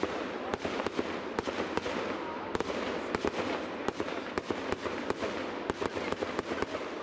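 Fireworks going off: a dense crackle with many sharp bangs at irregular intervals, several a second.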